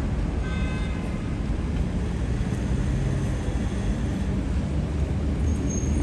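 City street ambience: a steady low rumble of road traffic, with a brief faint high tone about half a second in.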